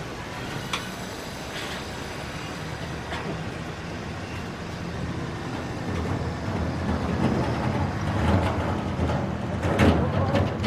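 Street traffic: a vehicle's engine runs with a low, steady rumble that grows louder over the second half. A sharp clack comes near the end.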